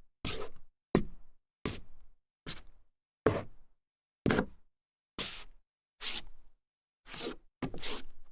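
Sneaker soles scuffing on a solid wood floor, a series of about ten short separate squeaky scrapes roughly one a second, the last two close together.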